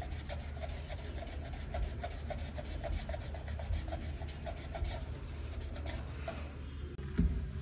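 A small pad rubbed in quick back-and-forth scrubbing strokes, several a second, over a stainless steel gas-burner plate to clean off grime. The rubbing stops about six seconds in, and a soft knock follows near the end.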